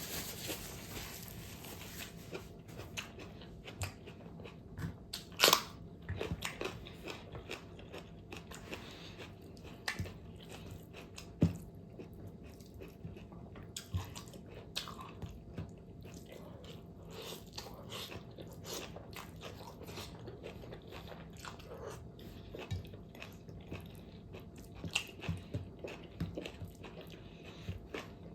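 A person chewing and biting pork fat close to the microphone, with irregular crunches and clicks and a couple of louder bites about five and eleven seconds in.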